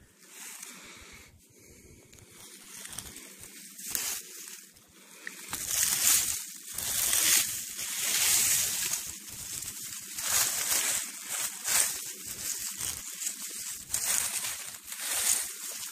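Dry fallen leaves and fern fronds rustling as a hand pushes through the forest floor litter, in irregular swells that grow louder about a third of the way in.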